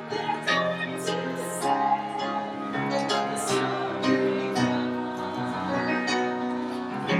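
Piano music: a melody of sustained notes played on a piano, with new notes struck every fraction of a second.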